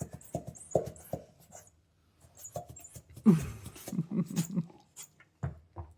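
A wolfdog making short grunting and whining sounds in a series of brief bursts, the loudest a little past three seconds in.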